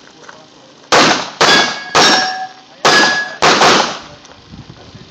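Five pistol shots: three about half a second apart, a short pause, then two more. Steel targets ring with a clear ringing tone after some of the hits.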